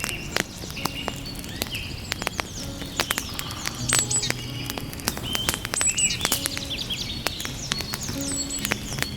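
Wood fire crackling with frequent irregular pops and snaps, with birds chirping throughout.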